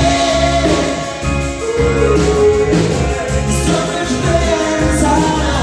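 Live rock band playing: a sung melody over electric guitars and drums with a steady beat.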